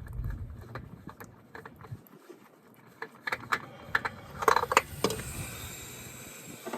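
Light metallic clinks, clicks and scrapes as tools and parts are handled. The clinks come thickest about four and a half seconds in.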